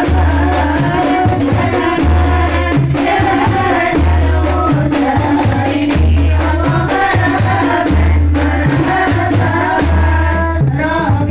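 A rebana group performing: women's voices singing together into microphones over rebana frame drums and small hand drums. The drums beat a repeating rhythm, with a deep beat about every two seconds, all amplified through a sound system.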